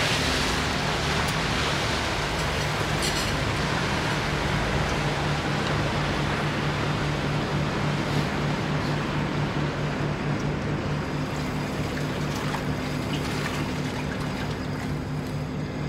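An engine running steadily with a low hum, under a steady wash of water and wind noise.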